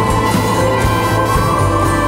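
Background music with held, sustained notes.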